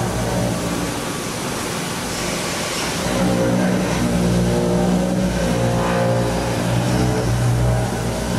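Hwacheon D2-5AX 5-axis machining center roughing titanium alloy (Ti-6Al-4V) with a 33 mm milling cutter at 600 rpm under flood coolant. A steady, pitched cutting hum runs over the hiss of the coolant spray.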